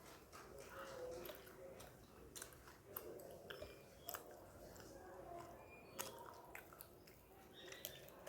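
A person quietly chewing food, with scattered sharp mouth clicks and smacks.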